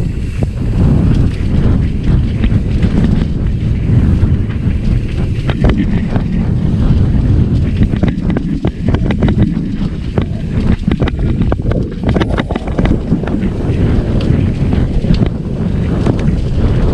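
Heavy wind buffeting on the microphone of a moving trail motorcycle, with its engine running underneath. Scattered clattering knocks come through from the middle on as the bike crosses rough ground.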